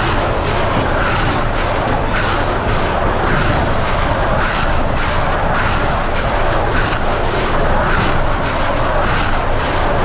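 John Deere 6155R tractor's six-cylinder diesel engine running steadily under way, heard inside the cab, pulling a baler-wrapper, with a faint regular clatter about twice a second from the machinery.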